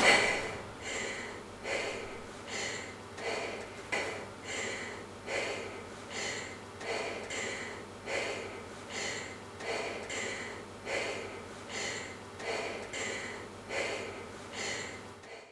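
A mop and floor brush scrubbing a wet floor in regular back-and-forth swishes, about one stroke every three-quarters of a second, over a steady low hum. The sound cuts off suddenly at the end.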